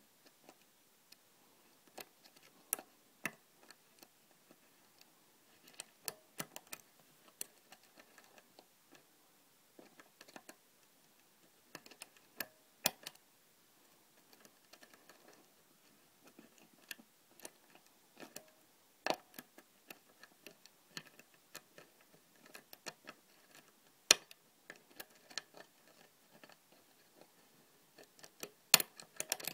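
Irregular small metallic clicks and ticks of a lock pick working the pins of a custom-pinned Yale euro cylinder lock under a tension wrench, a few clicks much sharper than the rest.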